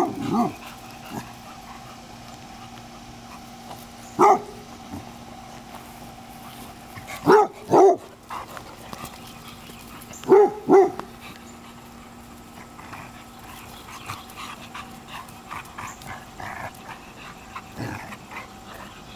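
A dog barking during rough play with other dogs: single barks and pairs of barks a few seconds apart, six in all, with a quieter stretch over the last third.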